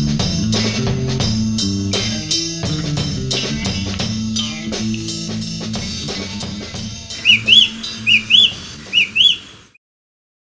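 Rock music with drums, bass and guitar, fading away and stopping about seven seconds in. Then a Eurasian oystercatcher's loud piping calls: three quick pairs of sharp, rising-and-falling whistled notes.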